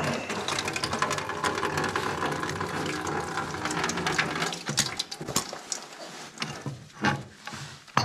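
A wrench working the brass fitting on a main water shutoff valve: metal clicking and scraping. A steady hiss runs through the first half and stops about four and a half seconds in, leaving scattered clicks and knocks.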